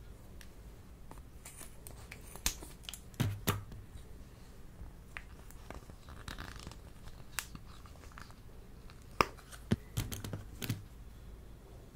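Plastic lip-gloss tubes being handled and laid into a glass dish, clicking against each other and tapping on the glass. The sharp clicks and knocks come in two clusters, the second near the end.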